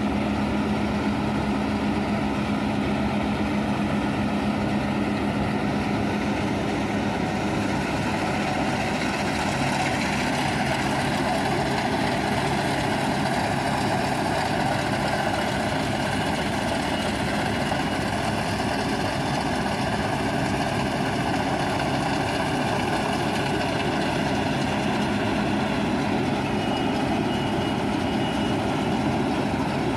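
New Holland CS6050 combine harvester running steadily as it cuts and threshes wheat, its engine and threshing machinery making a continuous drone. A low steady hum stands out for the first several seconds, fades, and comes back near the end.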